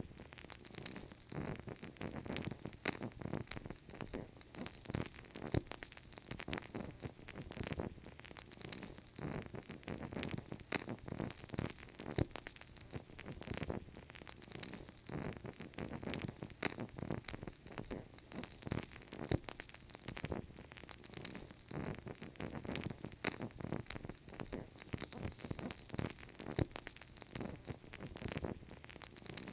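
Wood fire burning in a fireplace, crackling with frequent small pops and snaps over a low, steady rush of flame.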